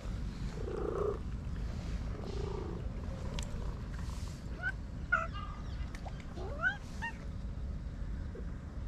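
A domestic cat meowing a few short times: one call about a second in, a cluster of short calls in the middle, and a rising call near the end. Under the calls runs a steady low rumble.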